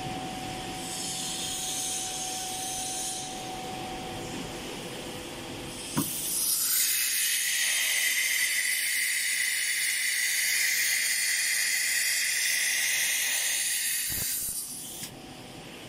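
Automatic tool change on a CNC router's pneumatic ATC spindle. A steady machine whine runs for the first few seconds, then a sharp click about six seconds in as the spindle releases. About eight seconds of loud compressed-air hiss follows through the spindle, cut off by a clunk near the end.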